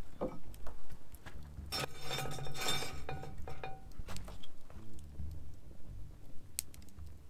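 Cookware clinking and scraping, with a longer clattering rattle about two seconds in, over soft background music.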